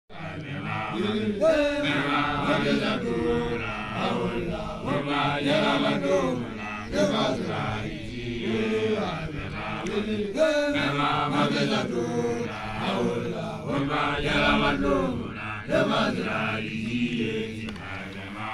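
Basotho initiates (makoloane) chanting in Sesotho, young men's voices in long rising and falling phrases with brief pauses between them.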